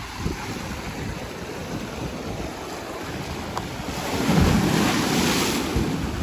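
Ocean waves breaking and washing up on a sandy beach, with wind buffeting the microphone; one wave surges loudest about four seconds in.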